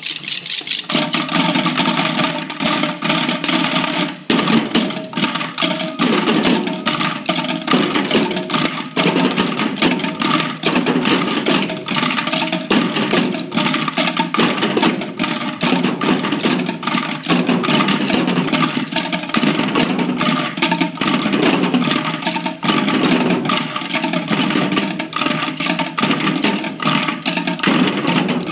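Bucket-drumming ensemble: many children beating sticks on upturned plastic buckets, with a few drums among them, playing together in a dense, steady, repeating rhythm.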